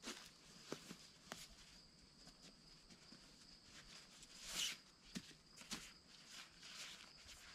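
Faint hand-handling of hammock gear and a fabric stuff sack: a few small clicks and knocks, with a short fabric rustle about four and a half seconds in, over a faint steady high hiss.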